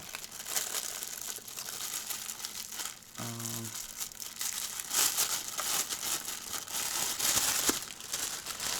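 Packaging crinkling and rustling as the jigsaw's accessories are handled and unpacked, louder in patches about five and seven seconds in.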